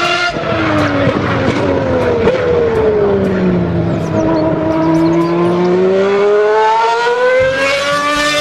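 Formula One race car engine sound: a high engine note whose pitch falls over about four seconds, then climbs steadily again as it revs up.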